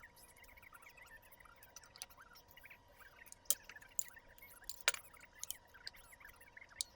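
Irregular light clicks and taps, about a dozen, the loudest a little after three seconds and just before five, over a faint steady electrical hum.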